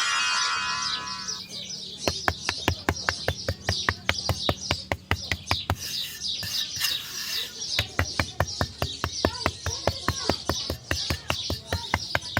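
Small birds chirping continuously, with a rapid, even clicking, about four to five clicks a second, from about two seconds in. A short pitched buzzy tone sounds at the start.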